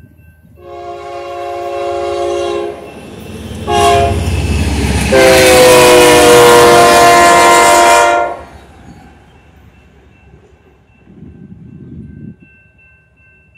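BNSF diesel locomotive's multi-chime air horn sounding for the grade crossing: a long blast, a short toot, then a longer and louder blast. Near the end comes a brief low rumble of the short train passing.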